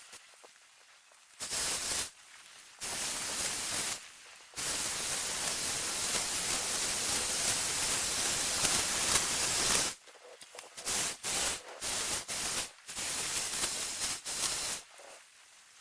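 Strong wind buffeting the microphone in gusts, a harsh rushing noise that cuts in and out abruptly, with one long gust through the middle and choppier bursts near the end.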